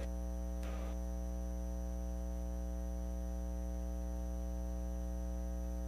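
Steady electrical mains hum on the sound feed: a constant drone made of many evenly spaced tones that does not change. A faint short sound comes just under a second in.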